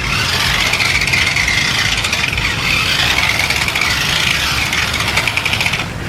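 Small electric drive motor of a toy RC car running, a high whine with some hiss that wavers a little in pitch and cuts off sharply near the end.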